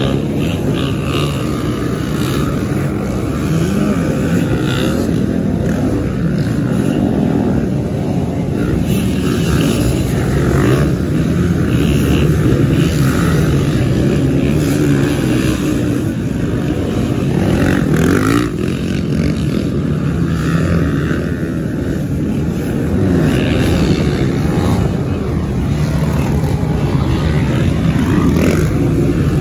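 Motocross dirt bike engines running hard in a beach race on sand, their pitch rising and falling as they rev up and shift.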